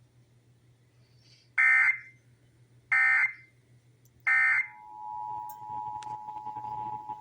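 Emergency Alert System broadcast tones: the SAME data header sent three times as short bursts of warbling data tones about 1.3 seconds apart, then the steady two-tone EAS attention signal starting about four and a half seconds in.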